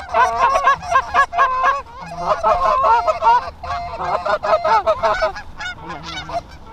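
Rapid goose honking and clucking, many calls overlapping, thinning out after about five seconds, as a Canada goose is called in to land.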